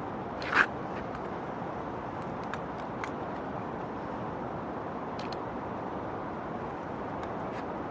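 Steady outdoor city background noise, a mix of distant traffic and crowd hubbub, with one brief sharp sound about half a second in and a few faint clicks.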